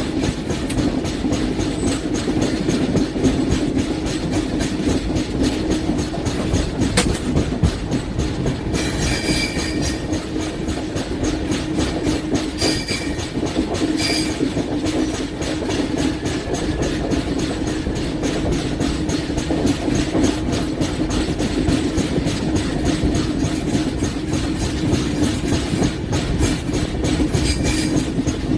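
LHB passenger coaches running along the track: a steady rumble with rapid clickety-clack of the wheels over the rails. Short high-pitched wheel squeals come through several times.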